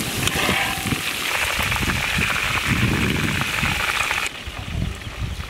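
Chicken pieces deep-frying in a wok of hot oil: a dense, crackling sizzle. The bright upper hiss drops away suddenly about four seconds in, leaving a quieter sizzle.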